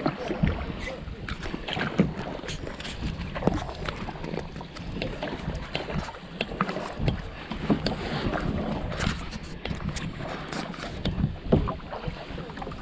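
A kayak being paddled, with paddle strokes in the water and sharp knocks every second or two.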